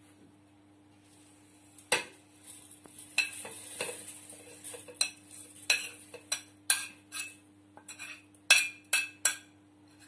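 Metal spoon scraping and tapping against a ceramic plate and the rim of a stainless-steel mixer jar as herb leaves are pushed into the jar. A run of clinks and knocks starts about two seconds in, ending in three sharp taps close together near the end.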